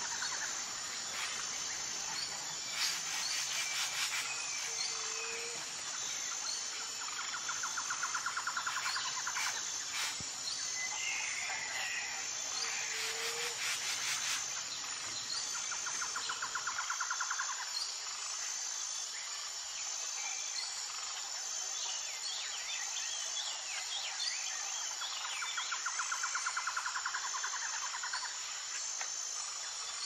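Forest ambience of insects and birds: a steady high-pitched insect buzz, a rapid trill that recurs every several seconds, and scattered short bird chirps.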